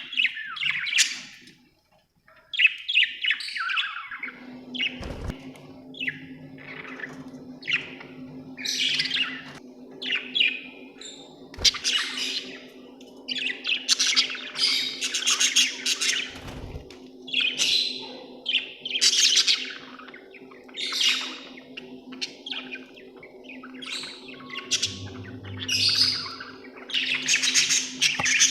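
Budgerigar chirping in frequent short high calls, with a brief pause about two seconds in. A steady low hum sits behind the calls from a few seconds in.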